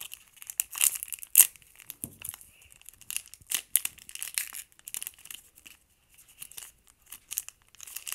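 Foil trading-card booster pack being torn open by hand: a run of short, irregular rips and crinkles of the wrapper, the loudest about a second and a half in, with a brief lull near the end.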